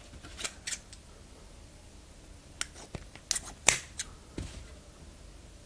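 Scissors snipping into a soft foam squishy toy: several short, separate cuts at an uneven pace, most of them bunched in the middle.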